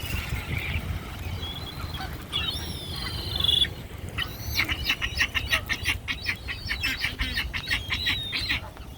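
Wild birds calling: scattered chirps at first, then a fast run of repeated chirps, about five a second, from about halfway to near the end, over a low rumble.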